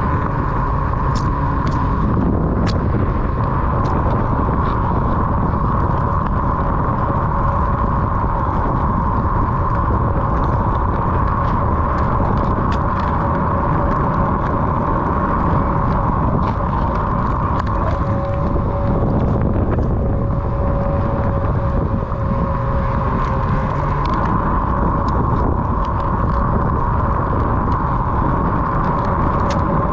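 Onewheel XR self-balancing electric board riding at a steady pace: the hub motor's steady whine over a continuous low rumble, with scattered small ticks.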